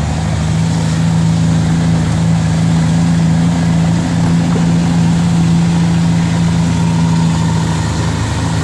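Heavy diesel truck engine running downhill on its Jake brake (engine compression brake): a loud, steady drone that stops near the end.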